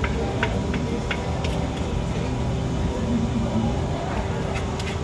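Busy open-air food court ambience: a steady low rumble and hum under distant chatter. Scattered light clicks and clinks come from a spoon against a plate and a clay mortar, a few about a second in and a couple near the end.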